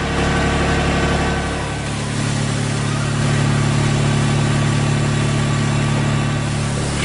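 An engine running steadily, its tone shifting slightly about two seconds in.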